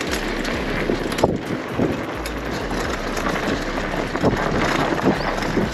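Wind buffeting the microphone while the WaltX Dune 1 fat bike's oversized tyres crunch over a dirt and gravel track, with scattered small clicks and rattles.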